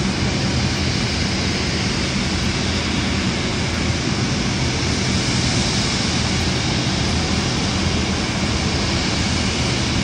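Boeing 747 freighter's four turbofan engines running at taxi power as the jet rolls past: a steady rushing noise with a high hiss over a low hum.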